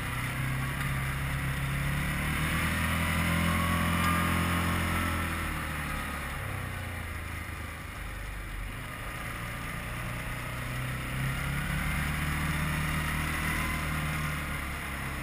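Quad bike (ATV) engine heard from the rider's seat, revving up under throttle. Its pitch climbs over the first few seconds, drops back about halfway through, then climbs again near the end.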